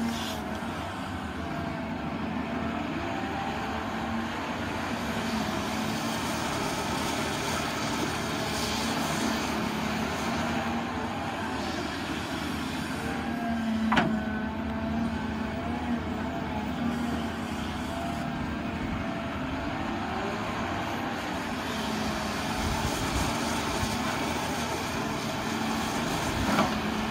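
Caterpillar hydraulic excavator running steadily as it digs, its pitch rising and falling as the load changes. A sharp knock about halfway through, and a smaller one near the end.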